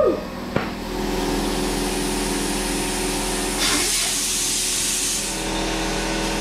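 Compressed air hissing from an air-hose chuck on the valve stem of a Hoosier dirt racing tire being inflated, one strong burst of about a second and a half near the middle, over a steady machine hum. A single short knock comes just after the start.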